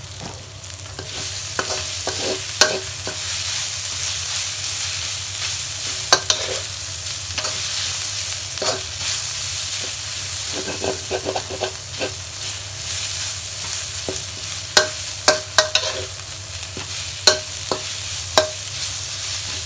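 Aromatics (shiitake mushrooms, ginger and a garlic, pepper and coriander-root paste) sizzling in oil in a pan as they are stir-fried, with scattered clacks and scrapes of the spatula against the pan. The sizzle grows louder about a second in.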